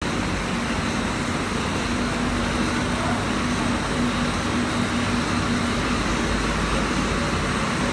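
Paper gravure printing machine running steadily, its rollers feeding a paper web, giving an even mechanical drone with a faint low hum.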